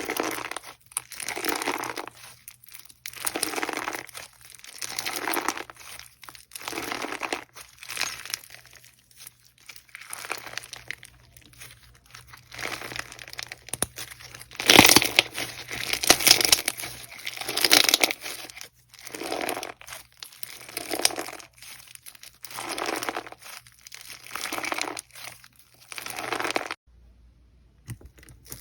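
Slime being squeezed and pressed by hand, crackling and crinkling in repeated strokes about one every second and a half. The strokes stop abruptly near the end.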